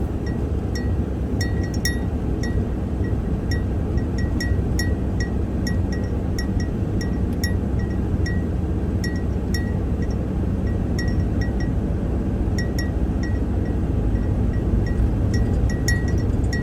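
Road and engine noise heard inside a moving vehicle's cab, a steady low rumble, with light metallic clinks ticking two or three times a second at uneven spacing from something small rattling in the cab.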